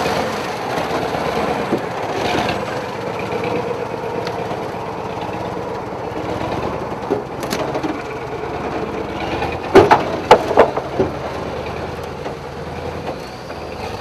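Engine of a heavily loaded log truck running as it rolls slowly over wooden planks. The planks creak and crack under the wheels, with a cluster of loud sharp cracks about ten seconds in.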